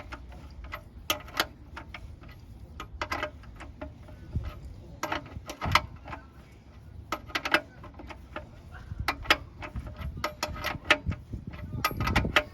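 A 21 mm socket working loose a car's oil sump drain plug by hand: irregular sharp metallic clicks and clinks, more than a dozen, as the socket and tool knock against the plug and each other.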